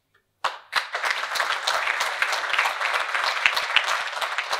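Audience applauding, starting suddenly about half a second in and carrying on steadily as dense, even clapping.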